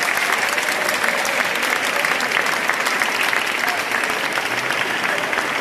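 Crowd applauding, a dense and steady clapping from many hands.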